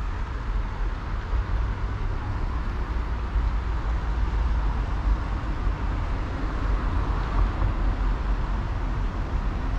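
Steady low rumble with an even hiss over it and no distinct events.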